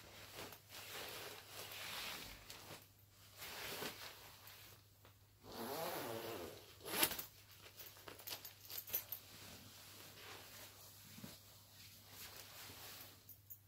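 Shiny nylon down coat rustling as it is handled, with its front zipper pulled open about six seconds in. A sharp snap follows at about seven seconds, then a few lighter clicks, as the coat's press studs pop open.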